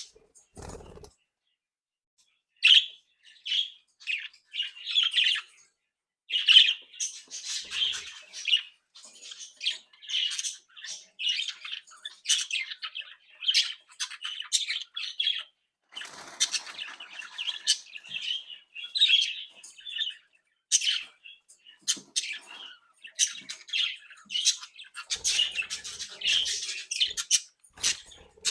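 A group of budgerigars chirping and warbling in quick bursts, with a short pause about a second in.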